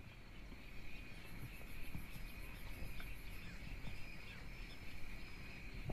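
Insects chirring in a steady, high-pitched chorus, joined for about two seconds, from about a second in, by a faster, higher pulsing trill, over a faint low rumble.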